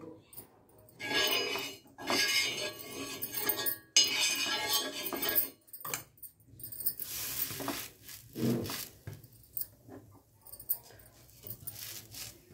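Metal spoon clinking and scraping against an iron cooking pan in several short spells, a few seconds apart.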